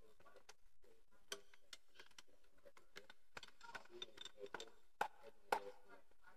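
Soprano saxophone keys clicking and tapping irregularly as the instrument is wiped down with a polishing cloth, with two louder clicks about five seconds in.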